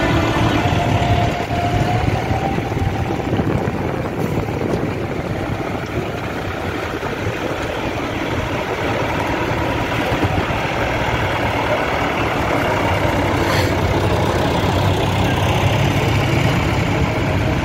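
Heavy tractor diesel engines running steadily at low revs, as in a slow-moving tractor convoy.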